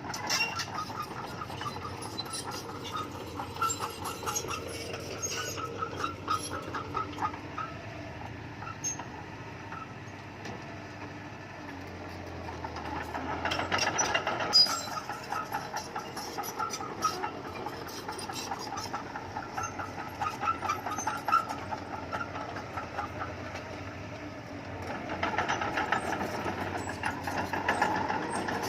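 Bulldozer working: a diesel engine running under a steady metallic clatter and clanking, growing louder twice, about halfway through and again near the end.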